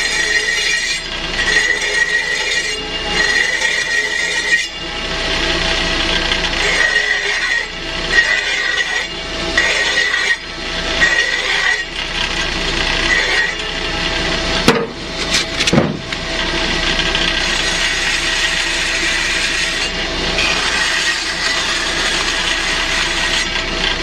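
Brake lathe running with a hand-held tool held against the bent edge of a spinning Corvair brake backing plate, scraping and squealing in repeated strokes of about a second each, then a few sharp knocks about halfway through, then steady scraping. The cut is truing a lip that was bent by drums being pried off, and leaves a little chatter on the edge.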